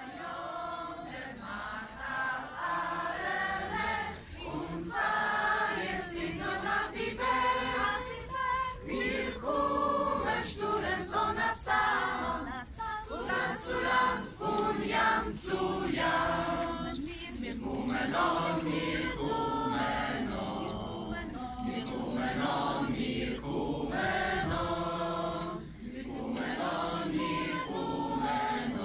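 Mixed choir of teenage voices singing a Yiddish song in unison, unaccompanied.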